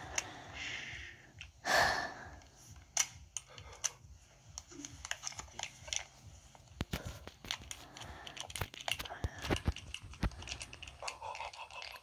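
Close-miked ASMR handling of a handgun: scattered small clicks, taps and crinkly rubbing noises, heard played back through a tablet's speaker. A louder, breathy rustle comes about two seconds in, and the clicks come thickest in the second half.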